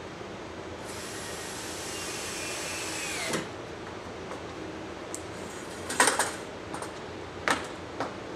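Handheld power drill driving a screw into the overhead top track: the motor runs for about two and a half seconds, then its whine drops and it stops. Later come several sharp knocks and clanks as the step ladder is moved and climbed.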